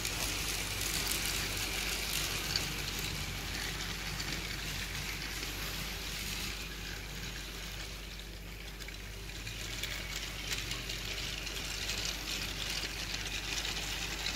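Toy battery-powered Rail King freight cars rolling past on plastic track: a steady rattling hiss of many small plastic wheels, with many faint ticks over the rail joints.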